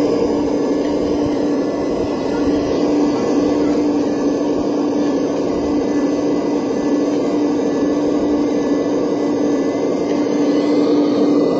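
Electric motors of a scale-model RC crawler excavator whirring steadily as it works its boom and bucket in sand, a constant mid-pitched hum.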